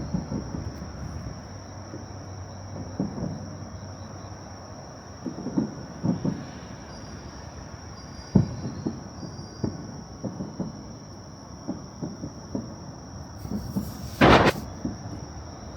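A steady high trill of crickets over a low outdoor rumble, broken by irregular low thuds every second or two and one loud, sharp crack about fourteen seconds in.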